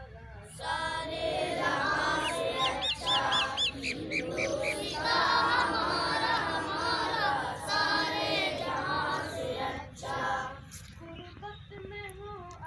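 A group of children singing together in unison, a patriotic song at a flag hoisting. The singing comes in strongly about half a second in and drops to softer singing near the end.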